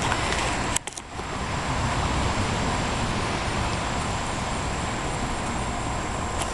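Steady outdoor background noise like distant road traffic, with a brief dropout a little under a second in.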